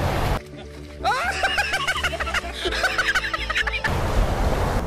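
An inserted comedic sound clip: high-pitched snickering laughter over music, lasting about three and a half seconds and starting about half a second in.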